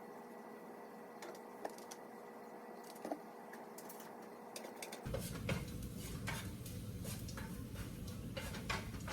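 Light clicks and clatter of small objects being handled over a steady hum. About five seconds in, the background turns to a fuller low rumble and the clicks and knocks come thicker and louder.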